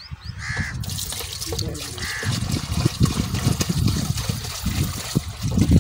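Water pouring steadily from a plastic can through a metal funnel into an HH Dabung tractor's radiator, starting about a second in. The radiator is being refilled after throwing its water out.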